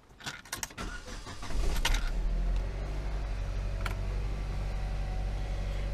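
A few light clicks and a jingle of keys, then about a second and a half in the Saab 9-3 1.8t's turbocharged four-cylinder engine starts, flares up briefly and settles to a steady idle, running with engine flush cleaner added to its oil.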